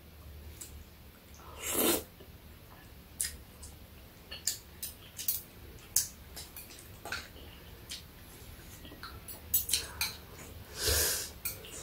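Chopsticks and metal spoons clicking lightly against bowls as two people eat, with two louder short breathy mouth sounds, about two seconds in and near the end.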